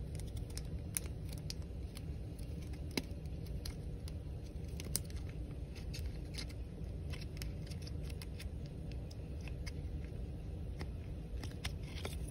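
Trading card being slid into a rigid plastic top loader: scattered light clicks and scrapes of plastic and card, over a steady low hum.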